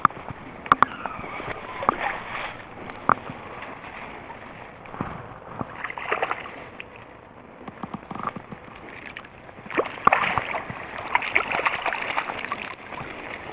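Hooked trout splashing at the surface of a shallow stream in irregular bursts as it is reeled in and scooped up with a landing net, the splashing busiest near the end.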